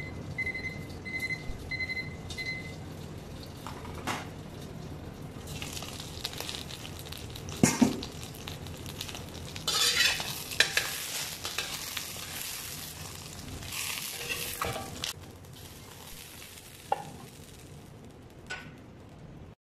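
Fish frying in a stainless steel wok, a steady sizzle. In the first few seconds a digital kitchen timer gives a run of about five short high beeps. Later come sharp metal knocks and scraping against the pan as the fish is moved.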